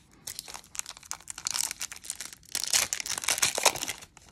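Foil wrapper of a 1993 Donruss baseball card pack being torn open and crinkled by hand, a dense crackling that is loudest through the middle and later part.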